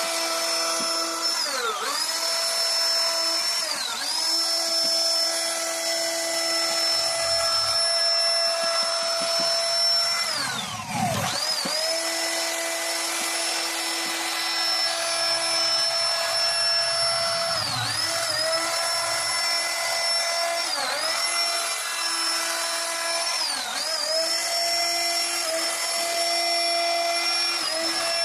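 CNC router spindle whining steadily while carving wood. Its pitch sags and recovers several times, most deeply about eleven seconds in.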